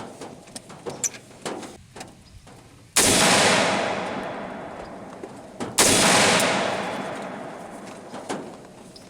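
Two rifle shots, about three seconds apart, each followed by a long rolling echo that fades over a couple of seconds. Light clicks and knocks come before the first shot.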